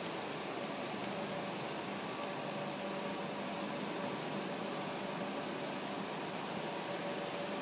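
Steady mechanical whirring of film projectors running in the gallery, with a faint constant hum.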